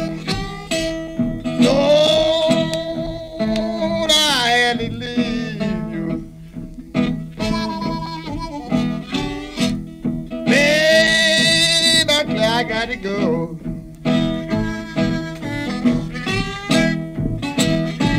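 Acoustic hill-country blues recording: slide guitar with harmonica, the guitar keeping a steady plucked rhythm. Two long bent wailing notes come in, about two seconds in and again about ten seconds in.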